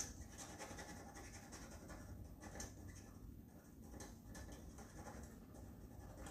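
Faint scratching of pens on paper: quick, irregular strokes of hand colouring.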